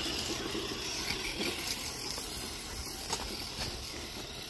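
Small RC truck driving through grass: a steady, noisy hiss of its motor and wheels working through the grass, with a sharp click about three seconds in.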